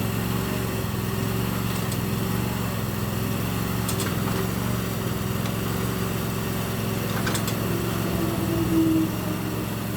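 Small gasoline engine of a Termite mini backhoe running steadily, with a few light clinks and a brief louder strain a little before the end.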